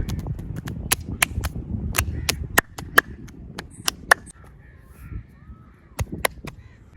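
Fast, vigorous hand massage of a person's back: rubbing and kneading noise with a rapid run of sharp cracks, about three a second for four seconds, thinning out and returning briefly near six seconds.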